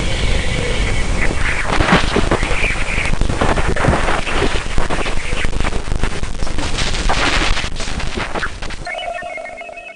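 Dense crackling, hissing static full of sharp pops: a spacecraft radio or plasma-wave recording converted to audible sound and presented as a moon's 'sound'. It fades out near the end, where a few steady tones come in briefly.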